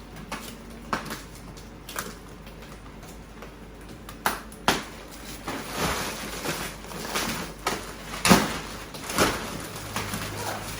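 Plastic wrapping of a vacuum-packed, rolled mattress crinkling and rustling as it is handled and unrolled, with scattered sharp cracks and knocks.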